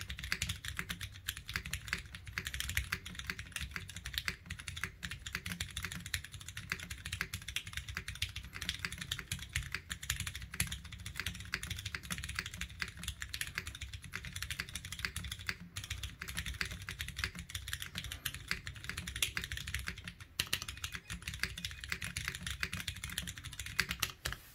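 Fast, continuous typing on a custom tenkeyless mechanical keyboard: lubed Cherry MX Clear tactile switches with 63.5 g Sprit springs, mounted in an aluminium plate, with GMK white-on-black keycaps and Cherry stabilizers. The dense run of key clacks stops just at the end.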